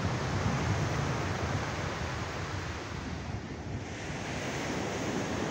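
Steady wash of ocean surf mixed with wind buffeting the microphone, easing briefly about three and a half seconds in.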